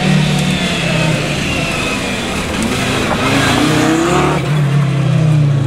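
Audi Quattro rally car's five-cylinder engine revving hard as the car drives past on a loose gravel stage. The pitch rises about three seconds in, then falls back.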